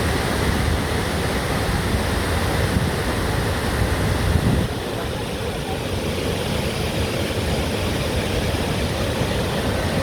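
Burney Falls waterfall rushing steadily: a dense, even noise heavy in the low end, dipping slightly about halfway through.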